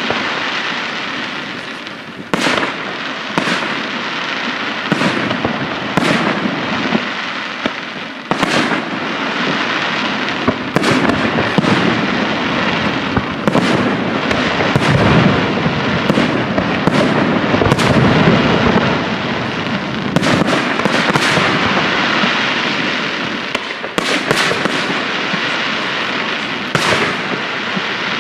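Aerial firework shells bursting during a fireworks display: about twenty sharp bangs at irregular intervals, roughly one a second, over a continuous rumbling wash of explosions and crackle.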